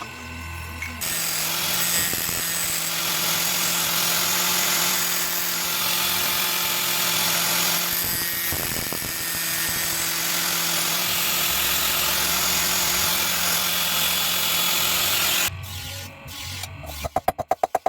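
An electric power tool runs steadily on the steel of a car leaf-spring blade, starting about a second in and cutting off abruptly near the end. A quick run of ticks follows.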